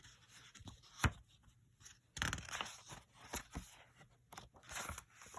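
Faint rustling, scraping and a soft knock as a picture book is handled and its pages are turned.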